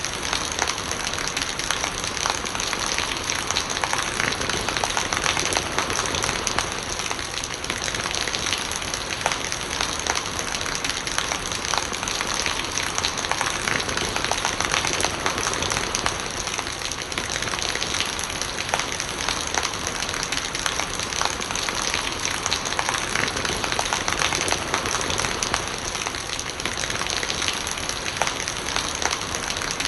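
Steady rain falling, a continuous hiss dotted with many small drop hits, at an even level throughout.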